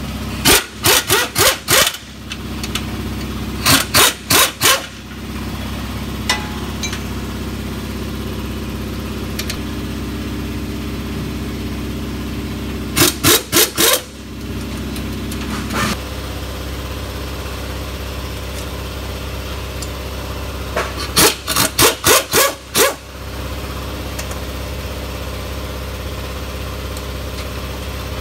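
Pneumatic wrench run in four sets of short rapid bursts, working the transmission bell housing bolts loose, over a steady shop hum.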